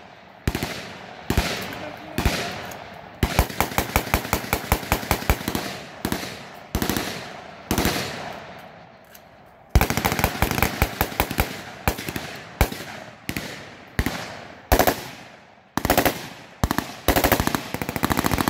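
Army rifles firing at pop-up targets on a firing range: quick strings of single shots, about four a second, from soldiers on more than one firing lane, broken by short pauses. Each shot trails off in an echo.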